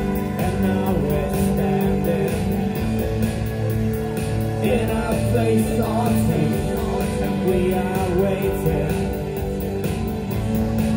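Live rock band playing: electric guitar, keyboards and drums, with a male vocalist singing.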